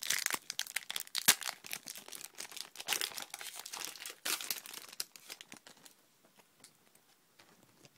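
A Pokémon trading card booster pack's foil wrapper being torn open and crinkled in the hands, a dense crackling for about five seconds with a sharp loud crackle about a second in. After that only a few faint ticks of handling.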